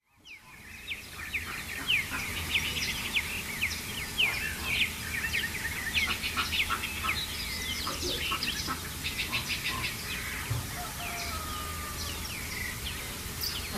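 Many birds chirping and calling together: a dense chorus of short, quick chirps and sweeping calls. It fades in from silence over the first second or two, over steady low background noise.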